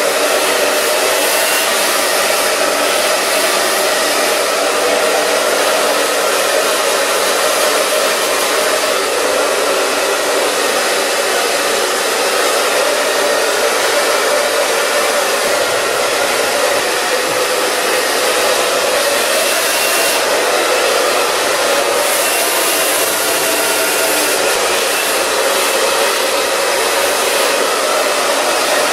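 Handheld hair dryer running steadily, blowing air through hair wound on a round brush during a blow-dry.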